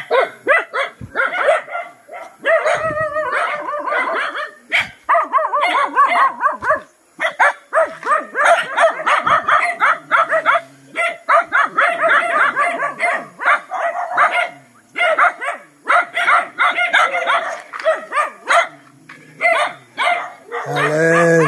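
Dogs barking and yipping almost without pause, short high calls following one another rapidly, with some whining among them.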